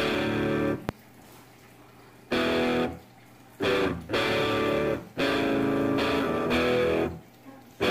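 Background music: guitar chords played in stop-start phrases, each chord held for about a second or two, with short breaks between them.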